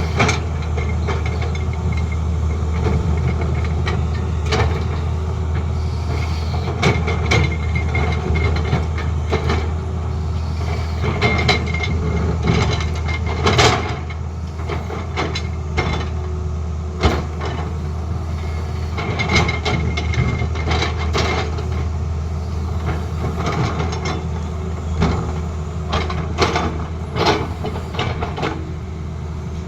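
Tata Hitachi excavator's diesel engine running steadily, with frequent short knocks and rattles over it.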